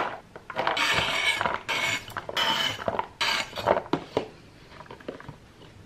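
Chopped green onions being scraped off a cutting board and dropped into a plastic food container: three or so rustling, scraping bursts with a few light clicks of the plastic tub.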